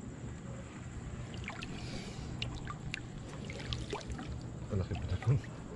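Hand scoop net swept through river water and lifted out to scoop up a shrimp, with splashing and water pouring and dripping off the mesh, and a few small knocks, the loudest near the end.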